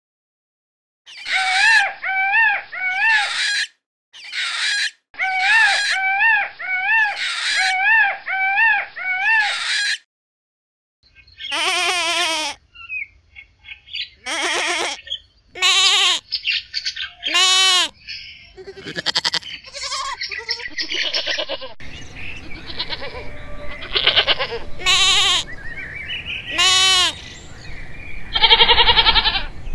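A peacock calling in repeated loud, wavering phrases. It stops, and from about eleven seconds goats are bleating: many quavering bleats, some overlapping, over a low background rumble.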